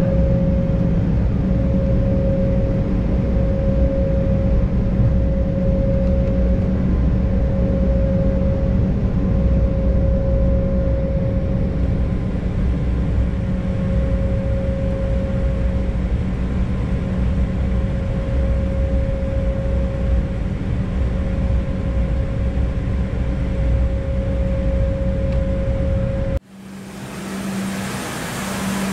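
Cabin noise inside an Embraer E190 jet airliner taxiing after landing: a steady low rumble of the engines with a constant mid-pitched hum. Near the end it cuts off abruptly and a quieter hiss follows.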